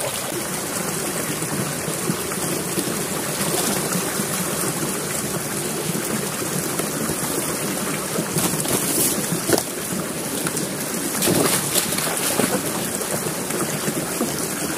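Shallow spring-fed stream running and rippling steadily over small drops, with a few splashes of boots wading through the water in the second half.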